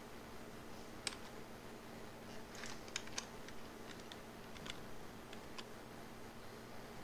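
Scattered clicks of a computer keyboard and mouse: single clicks spaced apart, with a quick cluster of several about three seconds in, over a faint steady low electrical hum.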